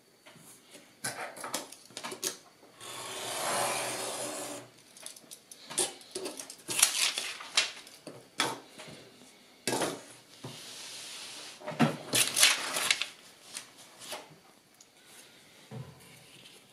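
Craft knife drawing a cut through paperboard along a steel ruler, a steady scraping stroke of about two seconds, among taps and clicks of the ruler and knife. Later the stiff board is handled and bent, crackling sharply.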